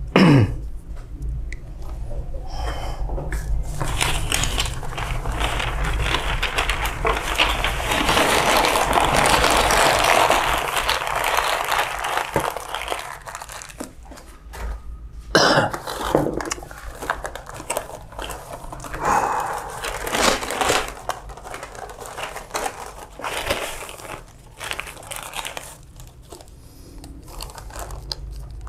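Crinkling and rustling handling noise as a photocopier's waste-toner unit is cleaned by hand. A sharp knock right at the start, dense continuous rustling through the middle, then scattered short scrapes and knocks.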